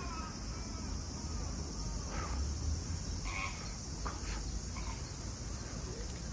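Outdoor ambience: a steady low rumble with a few short, high chirping calls scattered through the second half.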